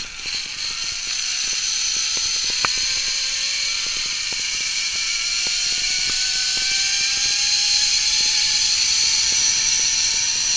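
Zip-line trolley pulleys running along the steel cable: a steady high whir with a thin whine that rises slowly in pitch, and a few light clicks.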